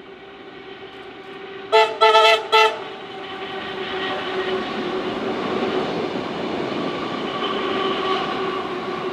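Vintage Tait wooden-bodied electric suburban train giving three short horn toots about two seconds in, then its running noise on the rails growing louder as it approaches, over a steady hum.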